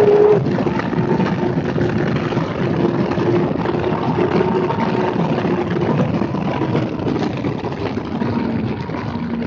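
Kawasaki ZX-6R's inline-four engine at high revs, its note rising and then cut short about half a second in as the throttle closes. A steady rush of wind noise follows over a lower, fainter engine note, easing off toward the end.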